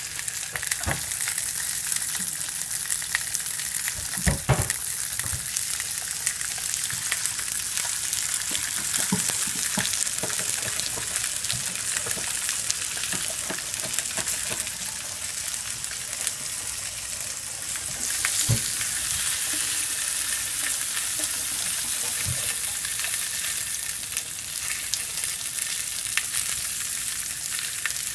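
Ears of corn on the cob frying on a stovetop griddle: a steady sizzle, with a few knocks of a utensil against the corn or pan. The sizzle gets louder about two-thirds of the way through.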